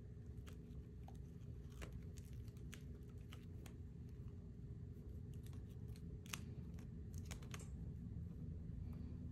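Faint handling sounds: a clear plastic lamp cord and its two-prong plug clicking and rustling under fingers and fingernails as they are worked through a fishnet stocking, a scatter of small sharp ticks over a low steady hum.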